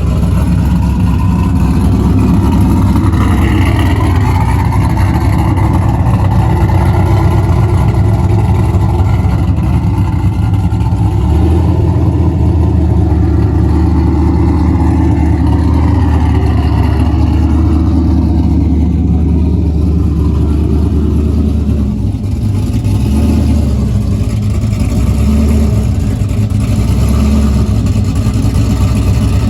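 Car engine running loud and close, idling steadily, with small rises and dips in pitch after about 22 seconds.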